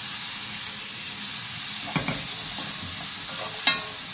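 Boiled chickpeas frying in hot oil and onion masala, stirred with a wooden spatula: a steady sizzle, with two short knocks of the spatula against the pan about two seconds in and near the end.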